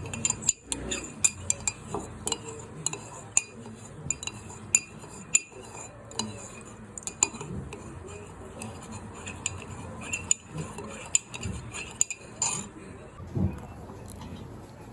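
A metal spoon clinking and scraping against a container in quick, irregular taps, as in stirring a mixture. The clinking stops about twelve and a half seconds in.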